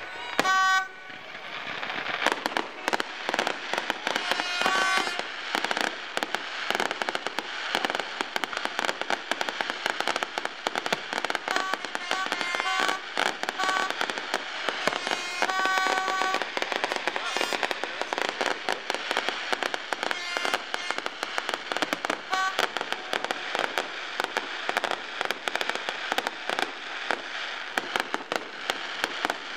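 Fireworks display: dense, continuous crackling and popping from aerial shells and crackling stars. Short steady horn toots sound on and off over it, about a second in, around five seconds in, several times in the middle, and once more past twenty seconds.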